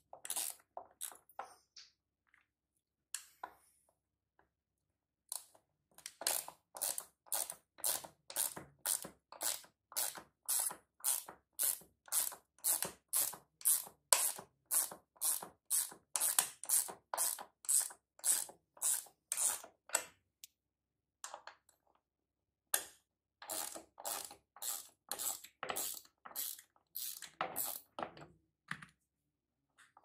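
Ratcheting box wrench clicking in a steady back-and-forth rhythm of about two strokes a second as it turns bolts on a washing machine's plastic tub. It runs in two long stretches with a short pause between them.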